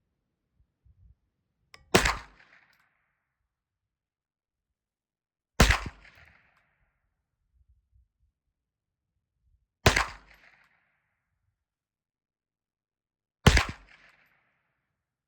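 Four single shots from a suppressed Ruger Mark IV Hunter .22 LR pistol, fitted with a Tandemkross Halo suppressor. The shots are fired one at a time, about four seconds apart, and each is a sharp crack with a short decay, as in slow aimed fire at a target.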